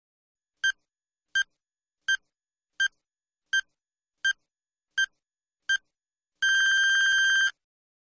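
Electronic countdown-timer beeps: eight short, high-pitched beeps about three-quarters of a second apart, then one long beep of about a second that signals time is up.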